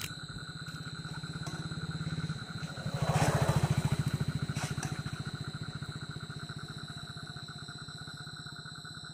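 A person wading through shallow water, with splashing loudest about three seconds in. Underneath runs a steady low, rapidly pulsing hum and a constant high tone.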